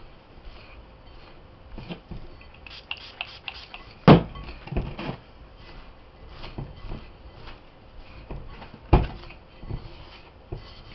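Hands working crumbly bath-fizzy mixture in a plastic bowl: a run of small scrapes and crunches, with two sharp thumps, the louder about four seconds in and another about nine seconds in.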